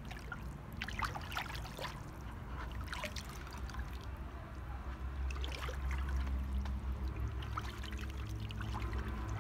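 A hand stirring and sloshing runny clay slip in a plastic bucket: wet splashing and dripping with many small irregular splats. A steady low hum runs underneath, growing louder about halfway through.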